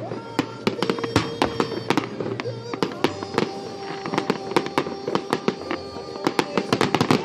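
Fireworks going off in rapid, irregular cracks and pops, several a second, over music playing in the background.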